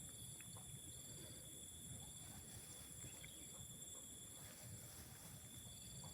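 Steady chorus of insects in tropical forest: several unbroken high-pitched trills at different pitches, with a shorter chirp that comes and goes, and a faint low rumble underneath.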